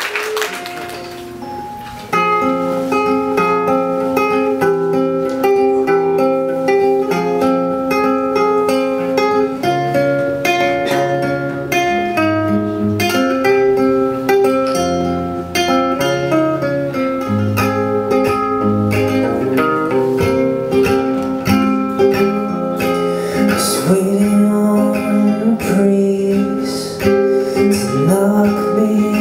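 Live acoustic band playing a song on two acoustic guitars and a keyboard. The music starts about two seconds in, after the applause has died away.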